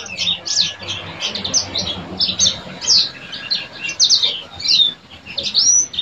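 Caged yellow-fronted canary (Mozambique serin) singing in full voice: a rapid, continuous run of high chirps and quick down-slurred whistled notes.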